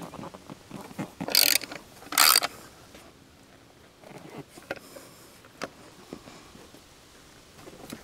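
Socket ratchet working on 12 mm-head bolts: two short bursts of rapid pawl clicking about one and two seconds in, then fainter scattered ticks and clicks.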